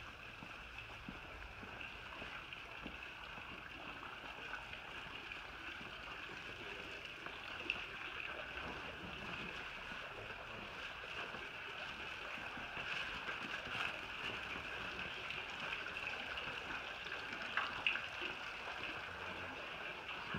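Steady outdoor ambience: an even, high hiss with no clear pitch that slowly grows louder, with a couple of faint clicks about eight and eighteen seconds in.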